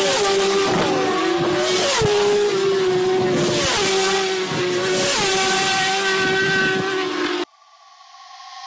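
Racing motorcycles at full throttle passing one after another, each engine's pitch dropping as it goes by. Near the end the sound cuts off suddenly, leaving a faint sound that slowly swells.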